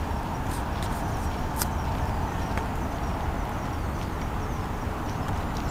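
Steady low outdoor rumble of a city at night, with a few faint clicks, the sharpest about one and a half seconds in.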